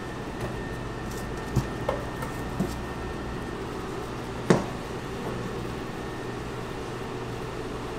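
Raw pork pieces being set into a stainless steel pan, with a few light knocks and one sharper clank about four and a half seconds in. A steady hum of kitchen ventilation runs underneath.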